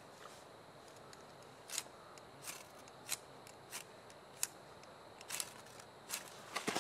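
Handheld lighter struck again and again at the base of damp kindling. It gives about eight short, sharp, scratchy clicks at uneven spacing, starting about two seconds in.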